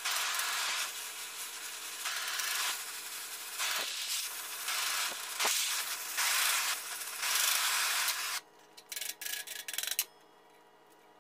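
Rough scraping or rubbing on metal in long swelling strokes, like a brush or abrasive worked over the steel bell. It stops about eight seconds in, followed by a few short scrapes.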